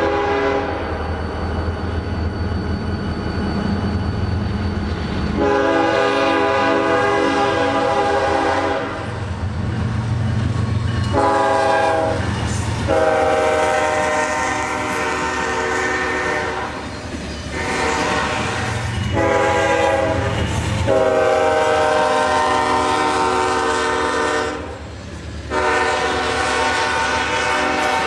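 Diesel locomotive's multi-chime air horn sounding a series of blasts, mostly long with a couple of short ones, as the train passes. A low engine rumble runs underneath.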